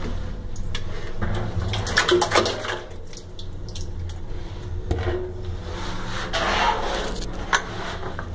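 Dirty bilge water splashing and sloshing in a ship's cargo-hold bilge well as it is cleaned out, with louder bursts of splashing about two seconds in and again near seven seconds, over a steady low hum.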